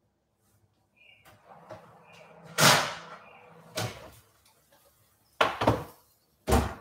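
An oven door opened with a clunk, then a metal baking tray of roast vegetables pulled out and set down on the cooktop with two knocks near the end.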